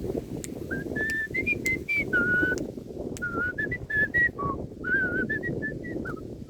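A person whistling a tune: a run of short held notes stepping up and down in pitch, over steady wind rumble on the microphone.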